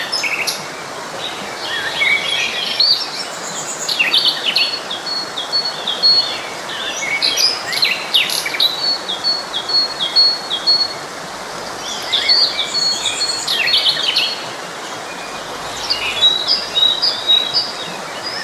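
Several songbirds singing and chirping over the steady rush of a forest stream. The song comes in phrases every few seconds, some ending in a run of quick repeated high notes.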